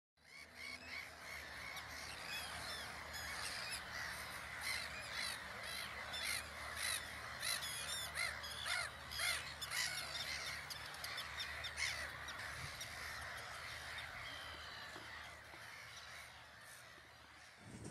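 A breeding colony of black-headed gulls calling: many harsh, short calls overlapping in a dense, continuous chorus that thins out near the end.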